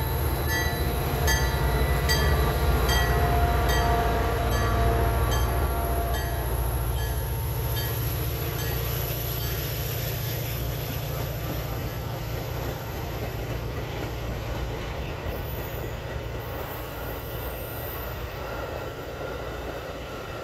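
A Metra commuter train's bilevel passenger cars rolling past at speed, their wheels clicking over rail joints about twice a second with a thin high whine. The diesel locomotive's engine rumble is loudest in the first few seconds and then fades as the train pulls away.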